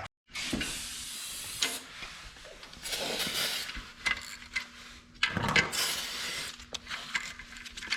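Irregular rustling, scraping and hissing of hands and tools working on an engine and transmission, with scattered sharp metal clicks and a faint steady hum underneath.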